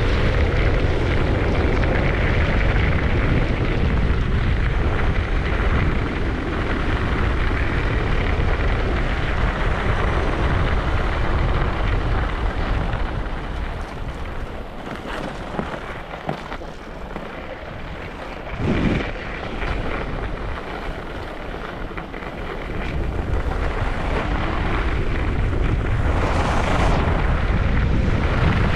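Wind buffeting the microphone and skis sliding over snow on a downhill ski run: a continuous rushing rumble that eases off around the middle, with one brief louder swell, and builds again near the end.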